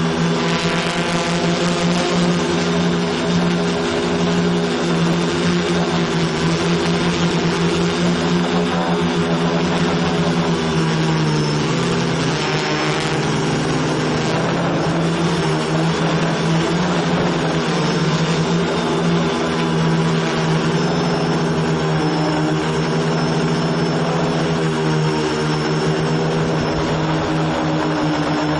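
Quadcopter's electric motors and propellers buzzing steadily at close range, heard from a camera mounted on the craft. Several steady tones sit together, and their pitch dips and shifts about twelve seconds in as the throttle changes.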